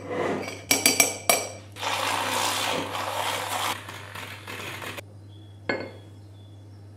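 A spoon clinking and tapping against a metal mesh strainer over a glass, then a handheld battery milk frother whirring steadily for about two seconds as it whisks a green drink, followed by a single knock on the counter.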